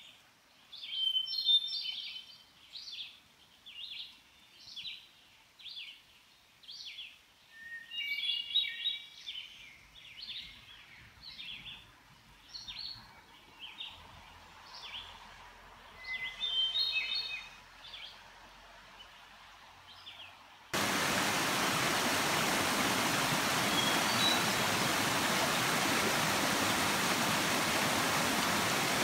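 Songbirds in woodland: a short call repeated a little faster than once a second, broken three times by brief fuller song phrases. About two-thirds of the way through it cuts suddenly to the steady, louder rush of a small stream tumbling over rocks.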